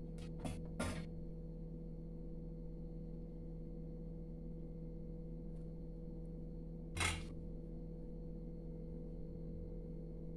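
Steady low hum with light handling noises: three small clicks within the first second and one louder short knock about seven seconds in, as a wet bread slice is pressed flat by hand over a stainless steel plate.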